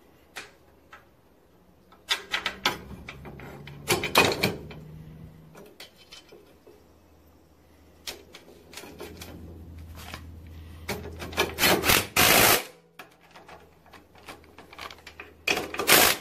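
Bolts, washers and a steel frame bracket clinking and knocking as they are handled and fitted to a garden tractor frame, with several louder bursts of work noise. Near the end a cordless impact driver runs briefly to drive a nut onto a carriage bolt.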